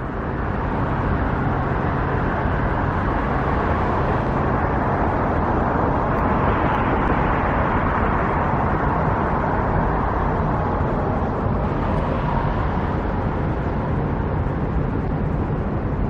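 Steady noise of road traffic, a continuous wash of passing cars with no single vehicle standing out.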